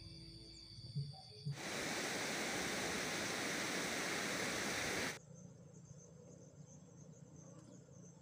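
An even rushing hiss, like wind or running water, cuts in about a second and a half in and stops abruptly about three and a half seconds later. It is followed by faint insects trilling steadily.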